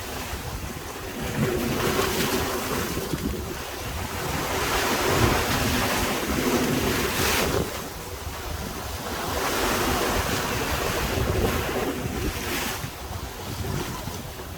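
Sea waves breaking and washing against the shore, surging and easing every few seconds, with wind buffeting the microphone.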